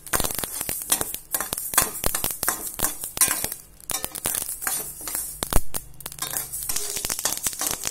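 Steel spoon stirring mustard seeds and urad dal as they dry-roast without oil in a stainless steel pan: the seeds rattle, and the spoon scrapes and clinks against the steel, giving many sharp, irregular clicks.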